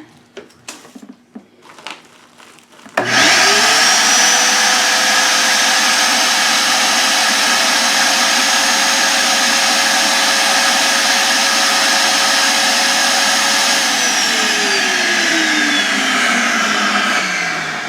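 Vacuum cleaner switched on about three seconds in, sucking the air out of a vacuum-seal storage bag of clothes through its valve; the motor runs loud and steady with a whine that settles in pitch, then slides steadily lower over the last few seconds.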